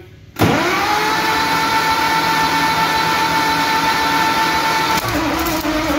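Starter motor cranking the 1954 Peterbilt's old diesel engine with its compression release held open to build oil pressure: a steady whine that starts suddenly, with no firing. Guitar music comes in near the end.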